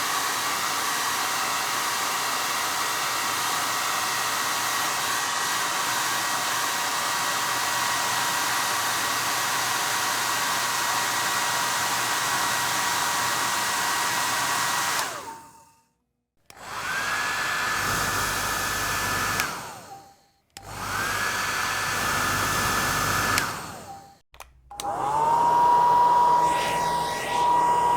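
Hair dryer blowing steadily with a high fan whine, winding down and stopping about 15 seconds in. It then starts up three more times with short gaps between, its whine rising as the motor spins up each time. The last run is the loudest, with a lower whine.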